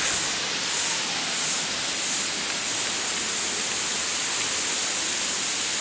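Steady rush of a waterfall, an even wash of falling water. A high pulsing hiss rides on top, beating about three times every two seconds at first, then holding steady.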